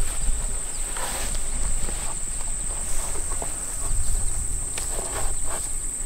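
Steady high-pitched chorus of crickets in the grass, with scattered short rustles and taps of hay and baling twine being handled at a wooden manual baler.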